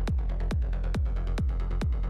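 Electronic dance music with a steady four-on-the-floor kick drum, a little over two beats a second.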